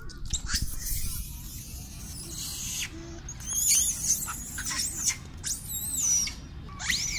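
Long-tailed macaques giving several high, wavering squeals that rise and fall in pitch, starting about three seconds in, over a steady low rumble. A rustling hiss comes before the calls.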